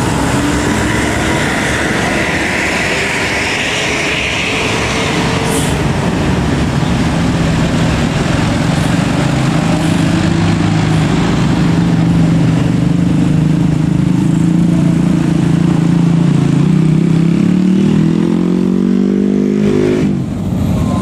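A heavy vehicle's engine running close by, steady for most of the time, then rising in pitch as it revs over the last few seconds and dropping off sharply near the end.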